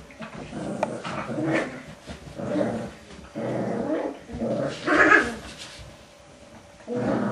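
Maltese puppies growling in short, repeated bursts while play-wrestling, with one louder, higher-pitched bark about five seconds in.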